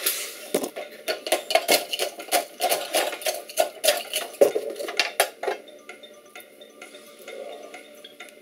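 Glass and utensils knocking and clinking as a caipirinha is mixed by hand: a quick, irregular run of sharp knocks for about five seconds, then it turns quieter.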